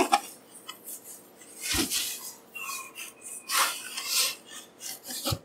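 Foam packing sheets rustling and rubbing as they are lifted and folded back by hand, in two longer swishes about two and four seconds in, with a short knock near the end.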